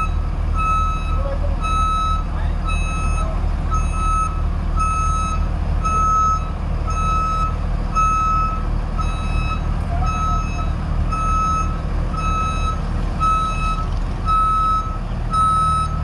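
New Holland TC5.30 combine harvester running, its engine rumbling steadily under a warning beeper that sounds just under twice a second.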